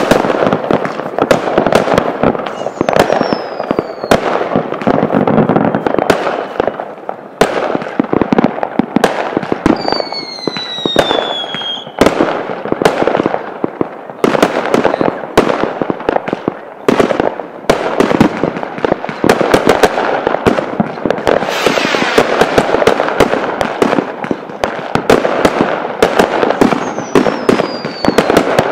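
Fireworks going off overhead in a dense, continuous run of bangs and crackles. Several falling whistles cut through, the longest about ten seconds in, lasting about two seconds.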